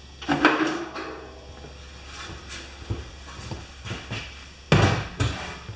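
The bolted cover of an electric wheelbarrow air compressor being lifted off and handled: scattered knocks and rattles, with two heavy thumps about five seconds in as the loudest.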